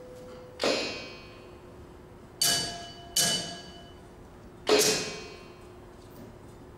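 Sparse percussion: four separate sharp strikes on small ringing objects, each sounding several clear pitches that die away over about a second. The strikes come irregularly, the second and third close together, the last slightly the loudest.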